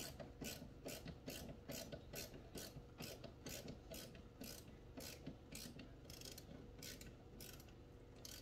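Hand screwdriver working a screw out of a window-frame shade bracket, clicking in a steady rhythm of about three clicks a second that grows a little fainter toward the end.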